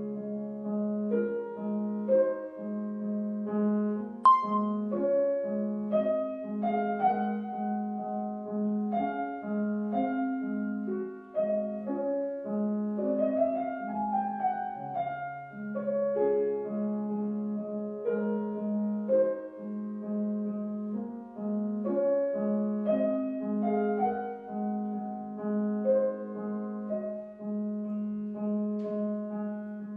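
Solo piano background music: a gentle melody over a low note repeated in a steady pulse.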